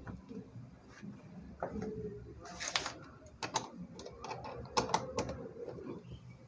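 Clicks and clinks of an Allen key working the bolts on a motorcycle's plastic fairing panel, with a brief scrape about two and a half seconds in.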